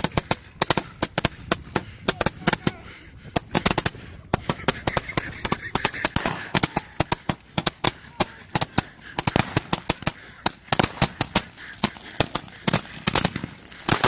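Firecrackers and ground fireworks going off: rapid, irregular sharp cracks, several a second, with a hissing haze between them.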